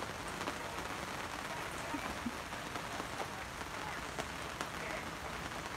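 Rain starting to fall: a steady hiss with scattered drops ticking.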